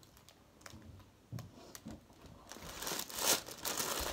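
Paper food bag rustling and crinkling in small crackles, sparse at first and then denser and louder in the second half.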